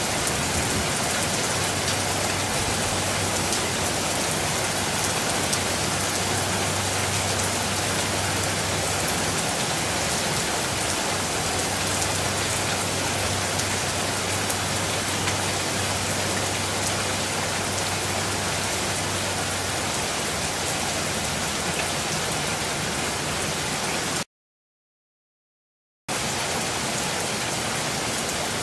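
Steady rain falling, an even hiss of many drops. It cuts out completely for under two seconds about 24 seconds in, then resumes just as before.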